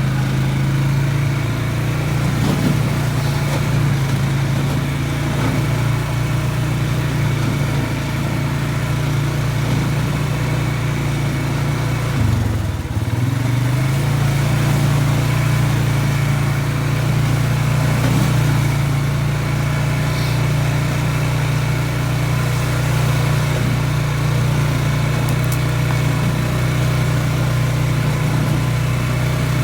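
Polaris Sportsman 570 ATV engine running steadily while riding along a trail. About halfway through, its pitch drops briefly as the throttle eases off, then climbs back up.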